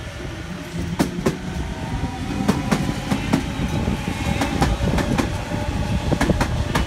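Sydney Trains Waratah B-set electric train passing close by, its running rumble growing louder, with the wheels clicking sharply and irregularly over rail joints and points.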